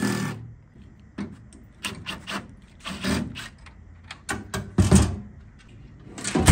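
Clicks, knocks and scraping of plastic and sheet metal as an ATM's loose plastic fascia is handled and the steel cabinet is shoved over. There is a heavy thump about five seconds in and another at the very end.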